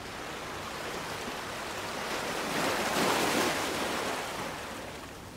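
Ocean surf: a continuous rushing wash of breaking waves that swells to its loudest about three seconds in, then eases off.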